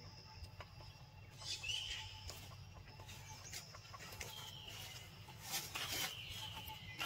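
A few short, harsh animal calls, each with a brief squawk, about every two seconds from a second and a half in.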